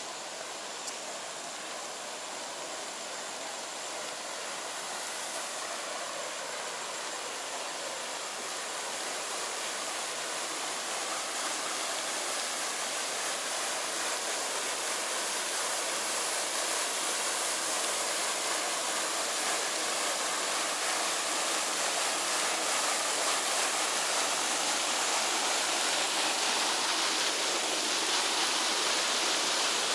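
Fountain jets splashing into a lake: a steady rushing of water that grows gradually louder.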